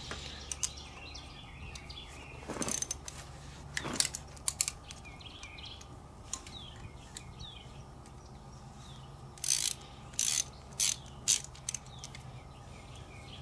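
Socket ratchet clicking in short bursts, working on a carburetor-mounting stud that has backed out of the engine with its nut.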